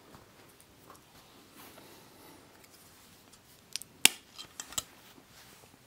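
Gravity Perseus Beyblade being pulled apart by hand: a few seconds of faint handling, then a handful of sharp clicks and snaps about four seconds in, one much louder than the rest, as its parts come apart.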